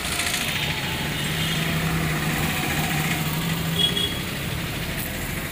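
Car engine and road traffic heard from inside a car moving slowly, with a steady low engine hum through the middle. A brief high-pitched chirp comes about four seconds in.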